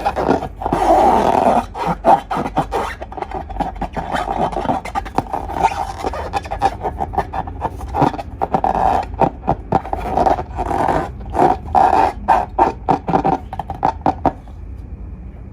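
Slime being squeezed and kneaded by hand, a wet sticky squishing crossed by many quick clicks and pops. It stops about a second before the end.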